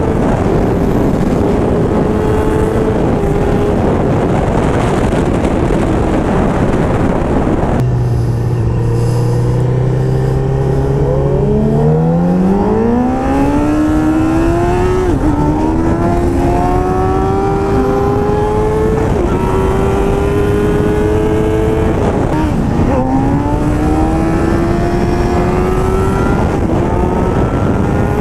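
Sport motorcycle engine heard through heavy wind rush, first holding a steady note. About eight seconds in it changes abruptly to a low steady note, then pulls away and accelerates hard through three upshifts, the pitch climbing between shifts and dipping sharply at each one.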